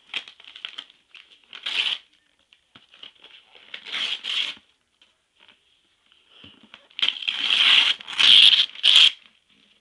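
Wrapping paper being torn and crumpled as a present is unwrapped, in several separate bursts of rustling, the longest and loudest near the end.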